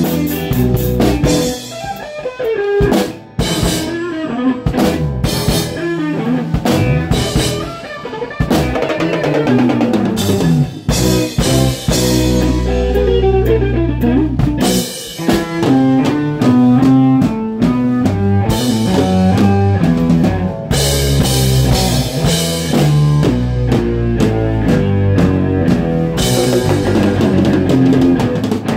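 Live rock band playing, heard close to the drum kit: kick, snare and cymbal hits over electric guitar and bass. Winding guitar lines in the first half give way to a fuller, steady groove from about halfway through.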